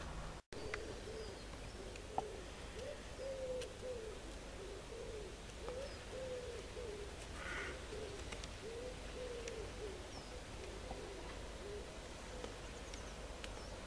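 A pigeon cooing over and over in a long series of low, soft coos, with a short call from another bird about halfway through and a few faint high chirps.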